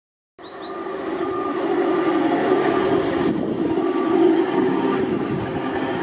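Hi-rail pickup truck running along the railway track on its rail guide wheels: a steady rumble of wheels on the rails.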